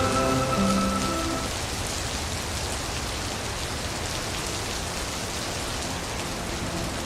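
Steady rain falling, an even hiss of drops with no thunder. Soft sustained musical tones fade out in the first second or so.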